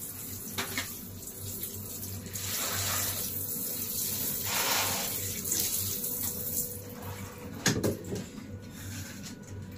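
Water spraying from a handheld shower head onto freshly caught fish on a tiled shower floor, rising and falling in several surges and easing off about seven seconds in. A single sharp knock follows near the end.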